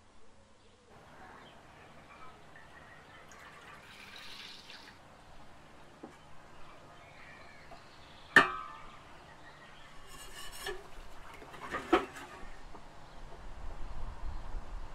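Kitchen preparation sounds: soft handling noise with two sharp clinks, about eight and twelve seconds in.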